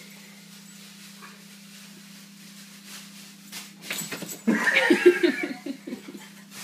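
Dog barking: a quick run of short, loud barks starting about four and a half seconds in, set off by helium balloons held close to its face.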